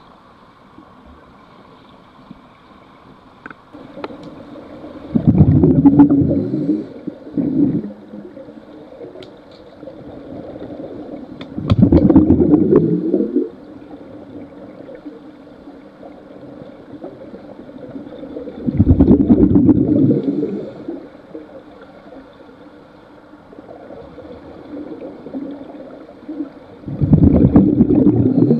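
Scuba regulator exhaust bubbles heard underwater: four bursts of bubbling, about one every seven seconds, with a faint steady hiss and a few light clicks between.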